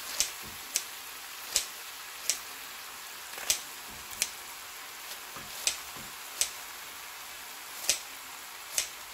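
Kitchen scissors snipping through napa cabbage kimchi, about ten sharp snips at an uneven pace less than a second apart.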